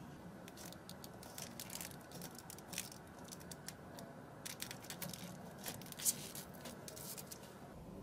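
Small magnetic balls clicking against each other as panels built from them are pressed and fitted together by hand: a scatter of faint, irregular clicks, with a sharper snap about six seconds in.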